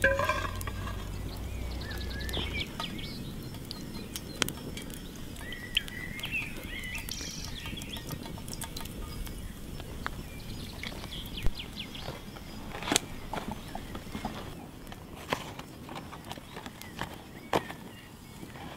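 Birds chirping over a small wood fire crackling, with scattered sharp snaps. A low rumble stops about two and a half seconds in.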